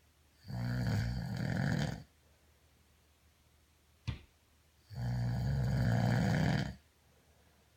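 A man snoring: two long, pitched snores of about a second and a half each, a few seconds apart, with a brief click between them.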